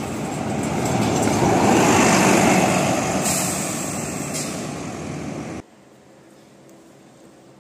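Volvo B9TL double-decker diesel bus driving past, its engine and road noise growing loudest about two seconds in and fading as it moves away. The sound cuts off abruptly a little over five seconds in, leaving faint room tone.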